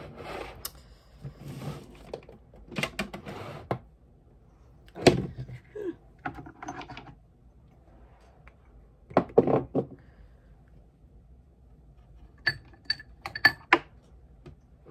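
Small skincare bottles and containers being picked up, moved and set down. There are scattered knocks and clatters, then a quick run of four sharp clinks near the end.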